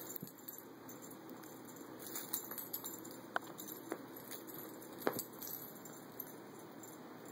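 A few faint, sharp clicks and light taps spread over quiet room sound as a cat plays with a feather wand toy.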